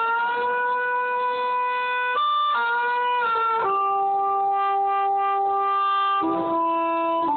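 Solo harmonica playing a slow melody in long held notes, changing note every second or two.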